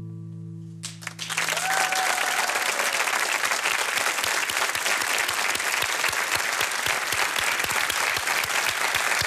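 The song's last held chord fading out, then a studio audience breaking into steady applause about a second in.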